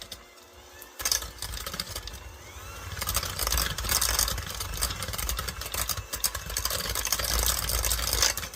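Electric hand mixer beating an egg into creamed butter and sugar in a bowl, starting about a second in and running steadily after that; a little noisy.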